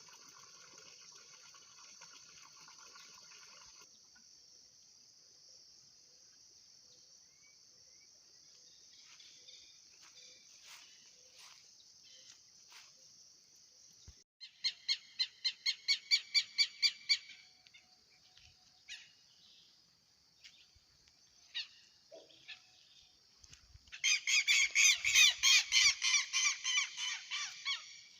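A bird calling in two runs of rapid, repeated loud notes, about four a second: one run about halfway through and a longer, louder one near the end, over a steady high hiss.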